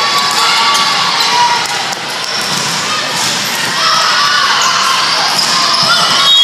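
Volleyball rally in a gymnasium: a few sharp hits of hands and forearms on the ball as it is served, set and dug, over players and spectators calling out in the echoing hall.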